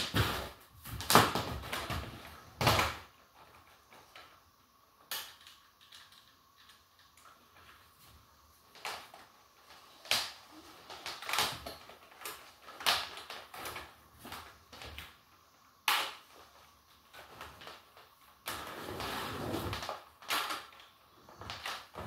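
Scattered plastic clicks, knocks and clunks from handling a switched-off Dyson DC25 upright vacuum cleaner, its motor silent, with a couple of seconds of steadier rustling and scraping shortly before the end. The loudest knocks come in the first few seconds.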